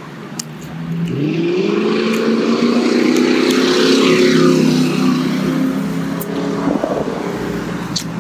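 A motor vehicle drives past, its engine note rising as it speeds up about a second in, loudest midway, then fading away.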